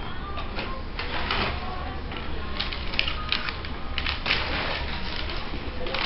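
Paper rustling and crinkling as it is handled by hand, in short, irregular scratchy sounds, over faint background music.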